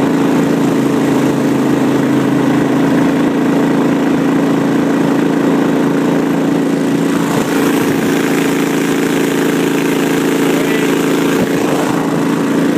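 Gator-Tail GTR 23 surface-drive mud motor running at a steady throttle, pushing a jon boat across open water.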